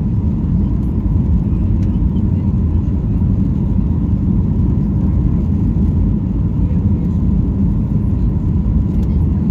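Steady cabin noise inside a Boeing 737-800 descending on approach: a constant low rumble of its CFM56 engines and rushing air, with a faint steady whine above it.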